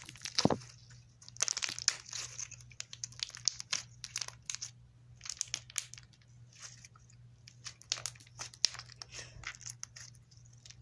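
Red glitter slime squeezed and stretched in the hands for ASMR, making a string of irregular sticky clicks and crackles.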